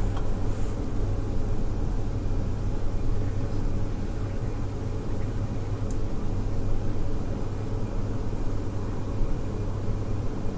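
Steady low rumble of outdoor ambience, with a faint short high tick about six seconds in.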